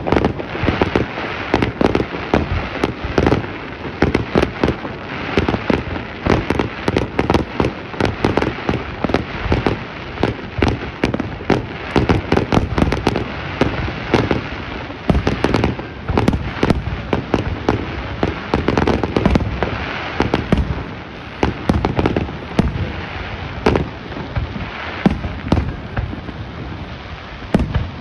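Fireworks display: aerial shells bursting in rapid succession, several sharp bangs a second mixed with crackling.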